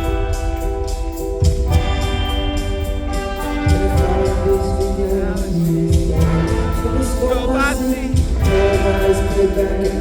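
Music with a singing voice over held chords and a deep drum hit about every two seconds.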